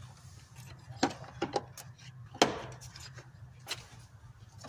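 About five scattered clicks and knocks as a car battery's terminal clamp is put back on its post and secured, the loudest about two and a half seconds in.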